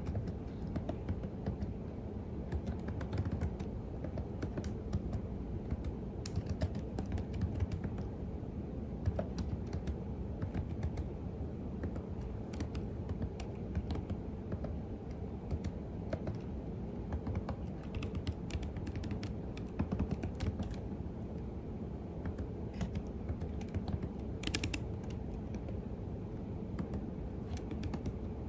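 Continuous typing on a computer keyboard: rapid, uneven key clicks with no pauses.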